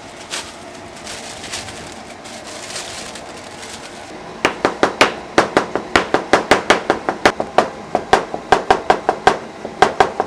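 A steady kitchen hiss, then from about four and a half seconds in a fast, even run of sharp knocks, about four a second, each with a short ring, typical of rapid chopping or utensil strikes in a restaurant kitchen.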